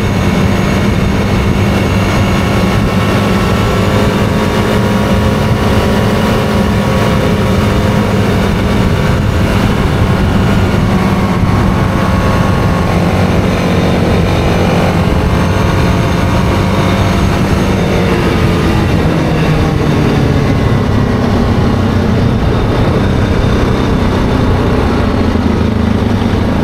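ATV engine running steadily at road speed, its note falling from about eighteen seconds in as it slows down.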